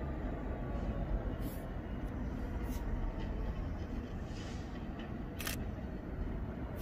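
Low, steady rumble of a GBRf Class 66 diesel locomotive, its two-stroke V12 engine, as it approaches slowly at the head of a light engine move, with three short sharp clicks over it.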